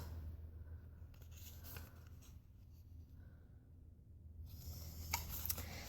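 Faint scratchy rubbing and rustling of cosmetic packaging being handled, over a low steady hum.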